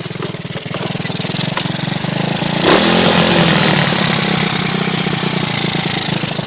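Rebuilt Lifan 110cc single-cylinder four-stroke motorcycle engine running just after its first start. It jumps louder with a change in pitch about three seconds in, then keeps running steadily.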